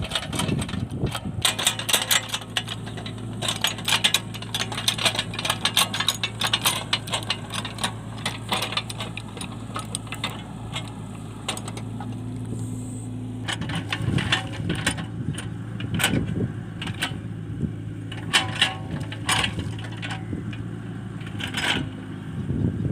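Compact excavator's diesel engine running steadily under load, with many irregular sharp clicks and clanks from the machine's working parts.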